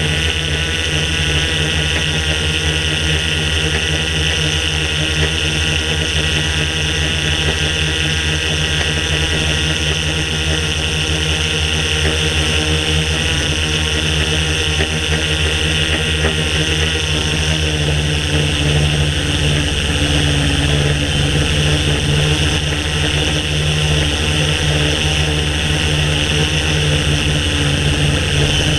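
A DJI S800 Evo hexacopter's electric motors and propellers running steadily in flight, picked up by the camera mounted on the craft: a loud, even buzz made of several steady tones over a hiss.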